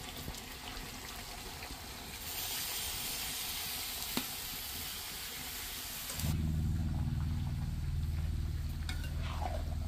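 Raw jackfruit pieces tipped into hot oil in an iron wok, sizzling and frying; the sizzle grows louder about two seconds in. About six seconds in, the hiss drops and a low steady hum takes over as the pieces are stirred.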